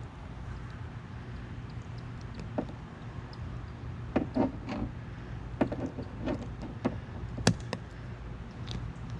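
Scattered clicks and knocks from scissors cutting and handling a rubber wire-hider strip against the windshield edge, bunched in the middle with one sharp knock near the end, over a steady low hum.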